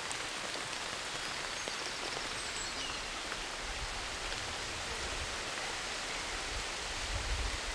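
Steady rain falling: an even hiss of many drops.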